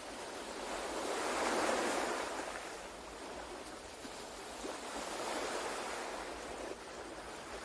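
Ocean waves washing in and out, the surf swelling to a peak about two seconds in and again near the middle, then easing off.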